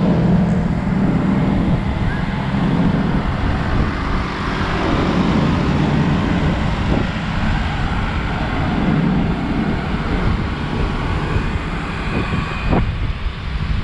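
Street traffic heard from a moving road bike: a steady rumble of motor vehicles and rushing noise, with a few short knocks near the end.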